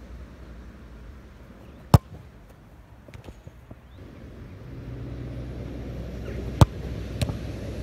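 A football struck hard off a cone with a sharp thud about two seconds in, and a second ball struck near the end, followed shortly by a softer thud. A steady low rumble rises from about halfway.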